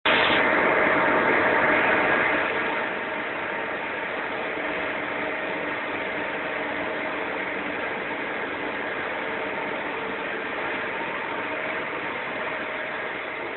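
Steady drone of industrial plant machinery, with a few faint steady tones running through it. It is louder for the first two and a half seconds, then settles to a lower, even level.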